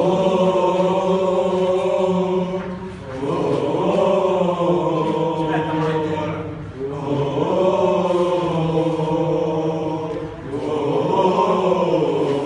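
A group of people singing a birthday song together, in four phrases of about three seconds each.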